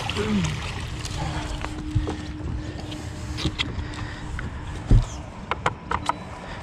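Knocks and thumps on a bass boat's carpeted deck as a landing net with a bass in it is brought aboard and set down, the loudest thump about five seconds in, followed by several lighter clicks. A low rumble of wind on the microphone and a faint steady hum run underneath.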